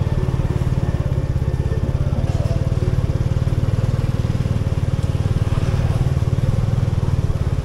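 Motor scooter engine running steadily at low road speed, heard close up from the rider's seat, with a fast even pulsing.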